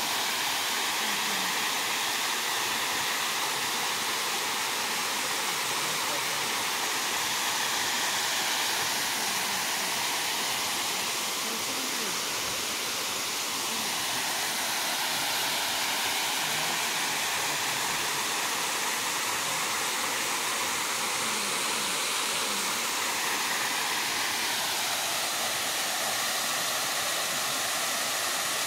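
Small waterfall cascading over rocks: a steady rush of falling water whose tone wavers slowly.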